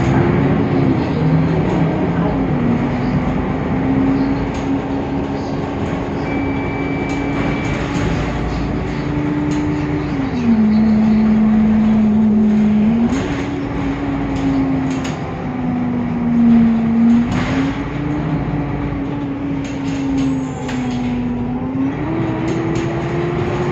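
Temsa Avenue LF city bus with a DAF diesel engine and ZF Ecolife 6-speed automatic gearbox, running with a strong whine over its engine rumble. The whine's pitch drops and rises in steps several times. This bus has a darker, deeper sound than usual for its type.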